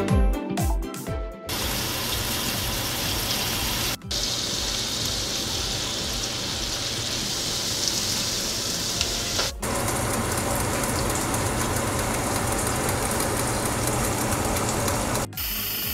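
Corned beef and sliced onion frying in oil in a pan, a steady sizzle that breaks off briefly about four and ten seconds in. Music plays for the first second or so.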